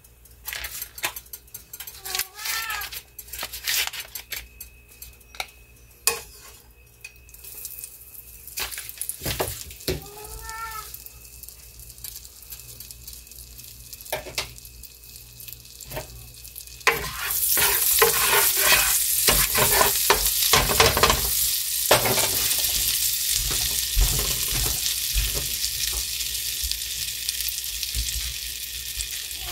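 Bacon grease and melting butter sizzling in a nonstick frying pan on a stove. At first there are only scattered pops. About halfway through it becomes a loud, steady sizzle as the butter foams.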